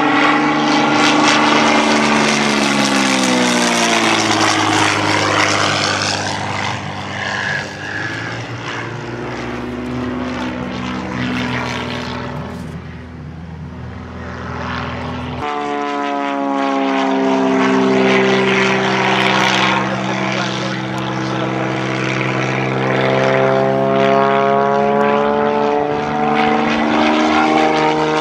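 Single-engine propeller aerobatic plane flying overhead, its piston engine and propeller drone sliding down and up in pitch as it passes and manoeuvres. It grows fainter just before halfway, then comes back loud after an abrupt change in tone.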